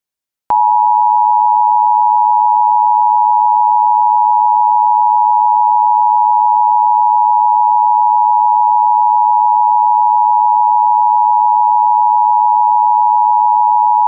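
Emergency Alert System attention signal: two close-pitched tones sounding together as one loud, steady, unbroken alarm tone. It comes on abruptly about half a second in, announcing that an emergency alert message follows.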